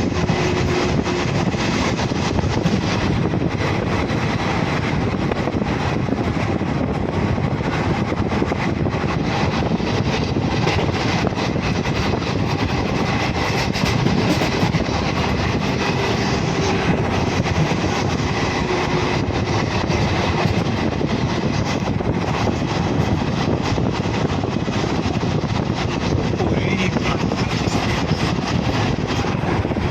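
Steady, loud running noise of a moving vehicle, an even rumble and hiss with faint steady tones through it.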